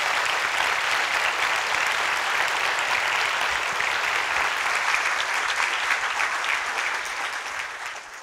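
Audience applauding: a large crowd's steady clapping that fades out near the end.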